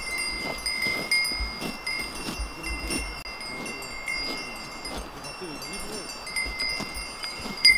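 Bells hung on grazing cattle ringing steadily, a jumble of overlapping clanks from several bells of different pitches.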